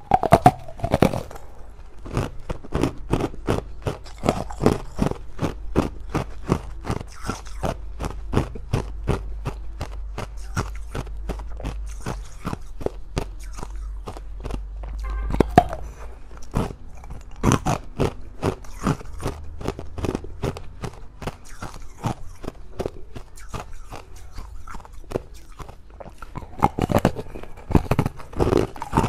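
Close-miked biting and chewing of a crunchy yellow-green ball treat on a stick: a dense run of sharp crunches, several a second.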